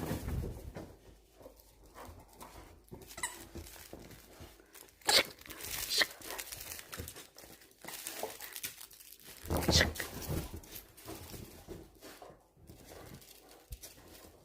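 A retriever at play. Scattered rustling and scuffing, with a few short, louder noisy bursts about five and six seconds in and again near ten seconds.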